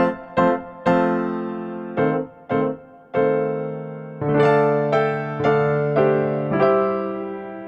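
Background music: a piano playing slow notes and chords, each struck and left to fade.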